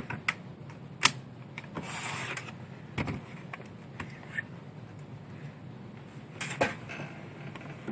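Scattered sharp plastic clicks and knocks, with a short rustle about two seconds in, as an Asus Eee PC 1025C netbook is handled on a desk, turned over and its lid opened.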